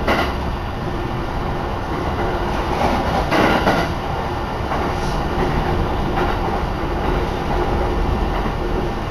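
An electric train on the Shin'etsu Line running along the track, its rumble and wheel noise heard from inside the carriage, with a louder rush about three seconds in.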